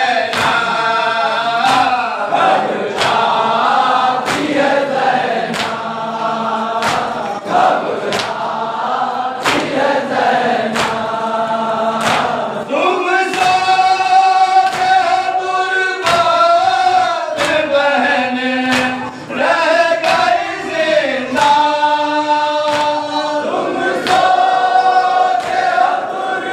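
Men chanting a noha (Shia lament) in chorus behind a lead reciter, held sung lines rising and falling. Under it, hands slap chests in unison (matam) about once a second.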